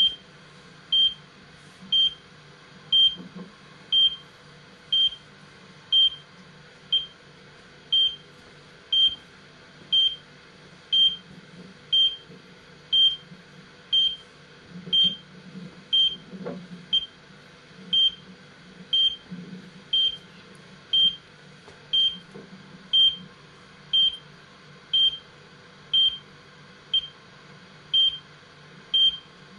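GPS-ABC time-base beeps: a short high beep once every second, evenly spaced, marking GPS time on a graze occultation recording. A faint low rumble runs beneath them.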